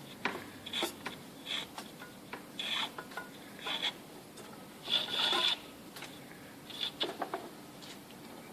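Sash cord being pulled through the sash in short tugs, rubbing as it slides. There are several brief strokes, with the longest pull about five seconds in.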